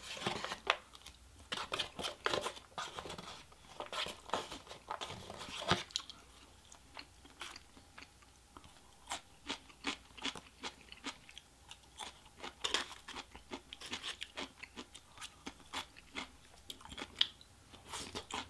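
Close-miked chewing and crunching of mouthfuls of Chinese takeout food, a steady run of small wet clicks. In the first six seconds it is louder and busier, with chopsticks clacking and scraping in a paper takeout box.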